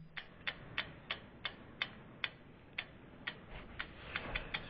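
Clock-like ticking sound effect of a logo animation: sharp ticks about three a second that speed up near the end, over a faint low rumble that starts to swell.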